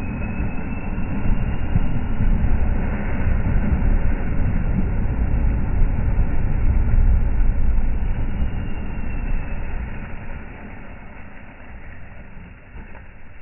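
Ford Ranger 2.2 four-cylinder turbodiesel pickup working under load in low gear as its tyres churn through deep mud, a dense low rumble. It is loudest in the middle and dies down over the last few seconds as the truck eases off.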